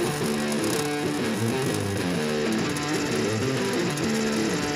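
Background music led by guitar, with notes changing in a steady rhythm.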